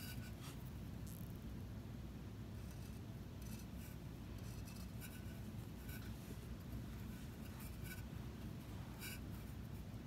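Fine tip of a squeeze bottle of Mayco Designer Liner underglaze scratching lightly across an unglazed bisque mug in short, faint strokes, over a steady low room hum.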